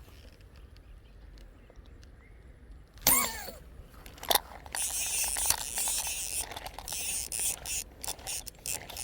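Slingshot-fishing line reel being wound in, a fast run of ratchet clicks from about five seconds in. A sharp sound comes before it, about three seconds in.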